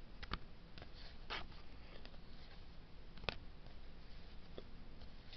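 Cardboard trading cards being shuffled through by hand: soft sliding of card on card with a few light clicks and snaps, the sharpest about three seconds in, over a faint low hum.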